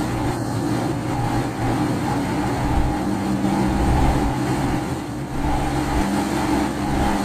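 Steady engine and road noise inside a moving car, with a constant low hum and no sudden events.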